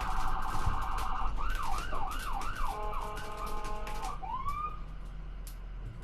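Electronic emergency-vehicle siren cycling through its tones. It opens with a rapid warble, then a fast yelp sweeping up and down about four times, then a brief steady tone, and one rising whoop about four seconds in before it fades out. Faint clicks run throughout.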